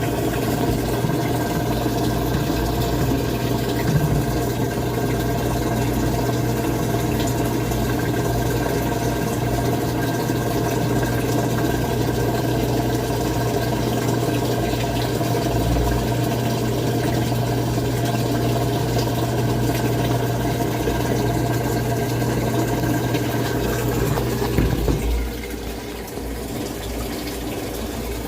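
Samsung top-load washing machine humming steadily while water runs in as it fills. The hum cuts off about 25 seconds in, leaving the quieter rush of water.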